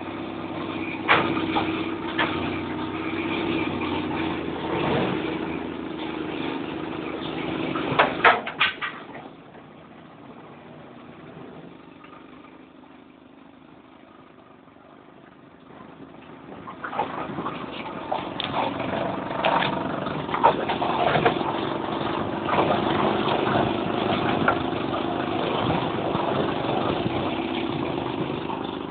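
Mini 1000's 998 cc A-series four-cylinder engine running, with a few sharp knocks about eight seconds in. The engine sound then drops away for several seconds and comes back about halfway through, running on with scattered clicks and knocks.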